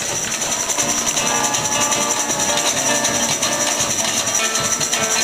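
Upbeat Brazilian festival music: fast, dense percussion with a constant high jingling shimmer, and a melody line over it.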